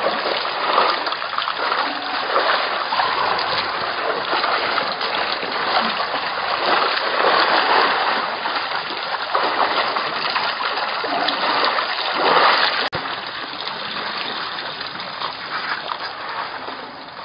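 African elephants drinking and wading at a waterhole: water splashing and sloshing in uneven swells as trunks and feet stir it. About 13 seconds in there is a sharp click, and after it the water sound goes on quieter.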